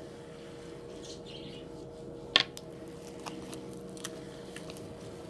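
Homemade slime being kneaded and stretched by hand, giving small sticky clicks and pops, with one sharp snap about two seconds in, over a steady background hum.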